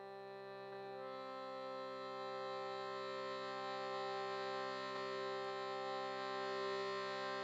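A sustained musical drone with many steady overtones, like a reed instrument or synthesizer pad, swelling in and holding one chord, brightening about a second in and growing slowly louder.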